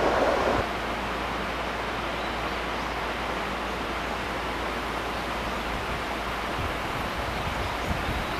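A train's noise cuts off abruptly under a second in, leaving a steady, even outdoor background hiss with no distinct source.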